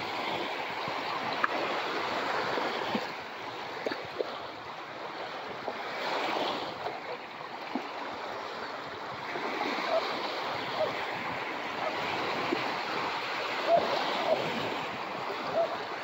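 Small waves breaking and washing up onto a beach: a steady rush of surf with a few sharper splashes.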